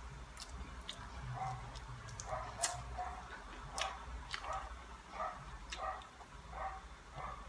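An animal, most like a small dog, gives short yelps over and over, one or two a second. Sharp crackles run through it as crisp fried dried fish is torn apart by hand.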